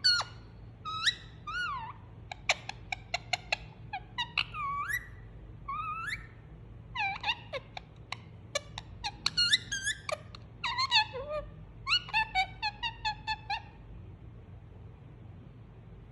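Indian ringneck parakeet chattering: sharp clicks mixed with short warbling calls that bend up and down in pitch, stopping a couple of seconds before the end.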